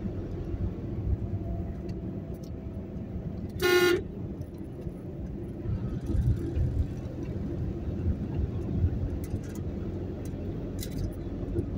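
Car driving on an open road, its engine and tyre noise a steady low rumble heard from inside the cabin, with one short car horn toot about four seconds in.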